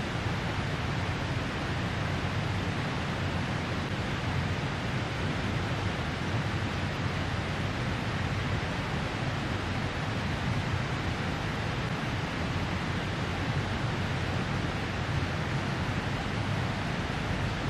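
Steady, even rushing noise of outdoor ambience, with no distinct events.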